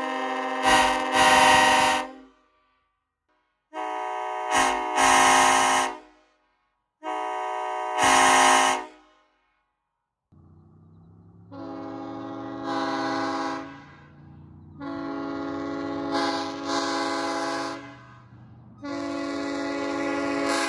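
Nathan Airchime five-chime train horn (K5LL / K5LLA) sounding a chord in six blasts. The first three last about two seconds each, with silence between. From about ten seconds in, three longer blasts sound over a steady low rumble.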